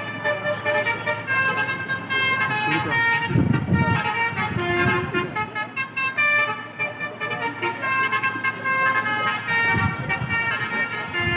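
Basuri-type telolet bus horns playing a quick tune of short held notes that step up and down through several pitches. Bursts of low rumble come about three and a half seconds in and again near the end.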